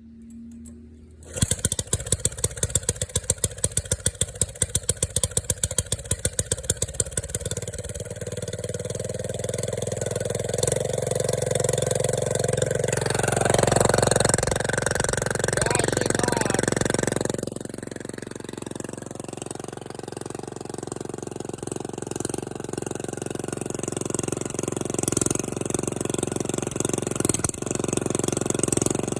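Diesel engine with a new large-bore exhaust being cranked over in the cold, with about six seconds of rhythmic cranking pulses, before it catches and runs. It revs up briefly, then drops back abruptly to a steady idle through the loud, open exhaust.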